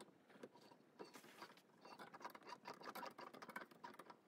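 Faint clicks and scrapes of hands handling a 125cc ATV cylinder head and its valve parts while a valve spring compressor is set up on it.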